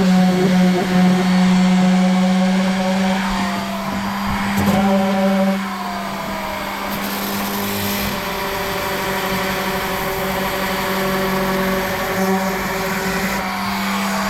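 Electric power sander running steadily on wood, its motor pitch dipping briefly a few times as it is pressed into the surface. The sound gets somewhat quieter about five and a half seconds in.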